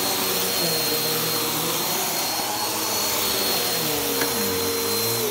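Upright vacuum cleaner running while pushed over carpet: a steady motor whine with a high tone, its lower hum shifting in pitch as the head moves.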